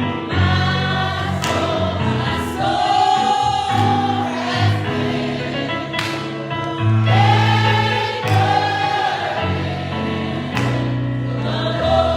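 Church choir singing a gospel song with a band, bass notes and regular drum hits under the voices.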